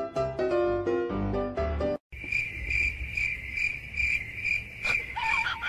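Piano-like background music for about two seconds, then it cuts off and a cricket chirps steadily in pulses about three times a second. A single knock comes near the end, followed by a few short squeaky sounds.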